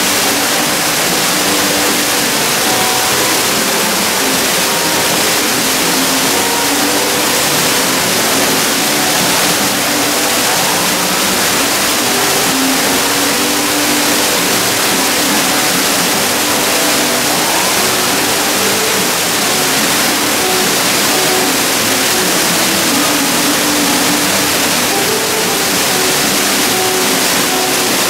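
Artificial themed waterfall pouring steadily into a pool: a loud, even rush of falling water.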